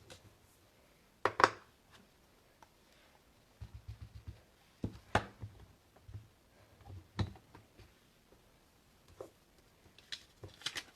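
Handling sounds of stamping at a craft table: scattered sharp clicks and knocks from a Stamparatus stamp positioning tool and clear stamp, with a quick run of soft taps about three and a half seconds in, as the stamp is inked up and pressed again.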